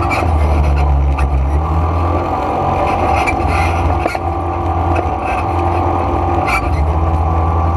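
ATV engine running steadily under way on a dirt trail, a low drone whose note shifts slightly a couple of times, with a few short knocks and rattles.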